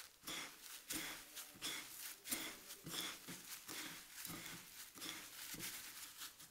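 Fingers stirring and rubbing dry breadcrumbs with chopped parsley and grated cheese in a ceramic bowl: soft gritty rustling in quick repeated strokes, about three a second.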